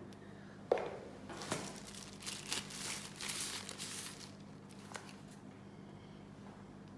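Crinkling and rustling of a white protective bag being pulled off a phone, in quick crackling bursts lasting a few seconds, after a single knock about a second in.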